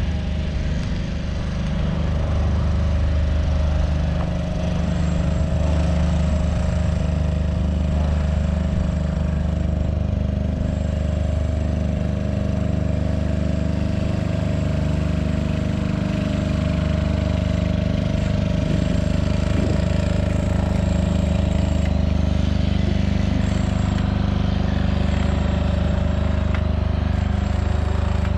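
A steady, loud engine or machine drone with a constant low hum.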